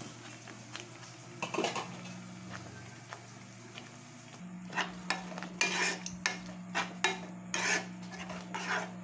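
Metal spatula stirring thick grated-pumpkin halwa in a non-stick kadhai, scraping against the pan in a run of repeated strokes that starts about halfway through. Before that there is a low steady hum and a brief clatter about a second and a half in.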